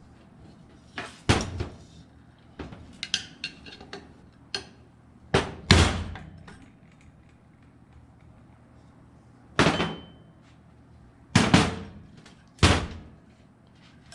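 Metal ceiling fan parts clanking and knocking as they are handled during disassembly: about eight sharp, separate knocks spread out, with a cluster of lighter clicks and rattles around three to four seconds in.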